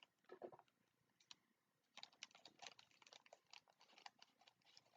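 Faint crinkling and small clicks of a package being handled and opened, scattered and irregular, thicker from about two seconds in.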